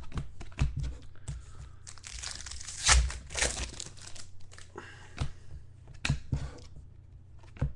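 Trading card packaging being torn open and crinkled, with a burst of tearing from about two to four seconds in, amid small clicks and taps.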